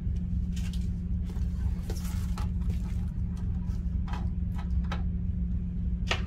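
Small items being gathered off a wooden tabletop: a handful of short rustles and taps from plastic zip bags, a pen and tweezers being picked up, the sharpest near the end. Under it a steady low hum.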